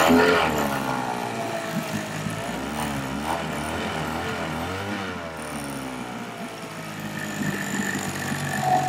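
Honda four-stroke outboard motor running just after starting on choke, having sat unused for weeks. Its revs surge and drop in the first second, waver for a few seconds, then settle into a steady idle.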